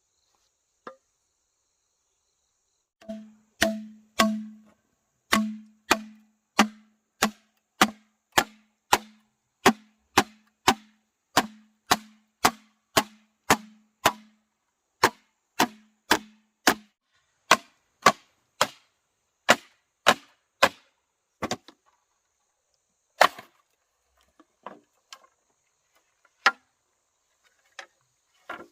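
A steady series of sharp blows on wood, about one and a half to two a second, each with a low thud in the first part, followed by a few scattered knocks near the end.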